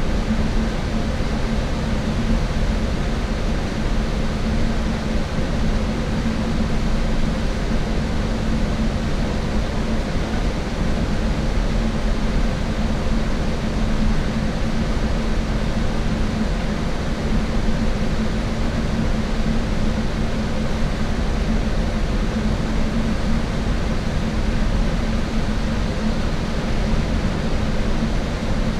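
Steady cabin noise of a shuttle bus cruising: low engine and road rumble with a constant hum, unchanging throughout.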